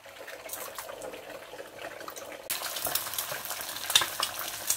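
Egg frying in very hot olive oil: a sizzle that swells into loud crackling and spitting about two and a half seconds in.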